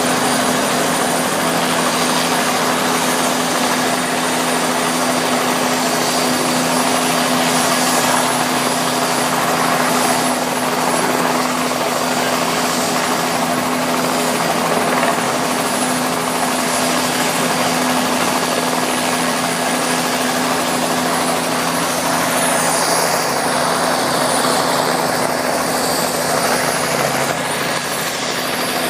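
Eurocopter AS355 Twin Squirrel helicopter running: a steady turbine whine and rotor noise as it hover-taxis. Near the end the sound sweeps and shifts as it flies past close by.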